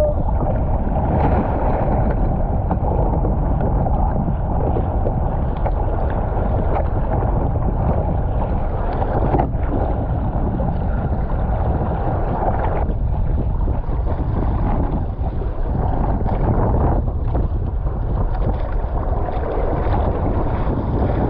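Wind buffeting the microphone over water rushing and splashing around a surfski as it is paddled through choppy waves: a steady, dense rush with most of its weight in the low end.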